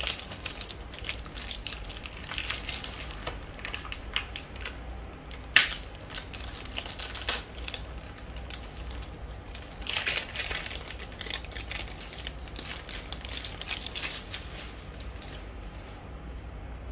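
Crinkling and rustling of plastic packaging as a new keyboard is unwrapped by hand. There is a sharp knock about five and a half seconds in and a louder burst of crinkling around ten seconds.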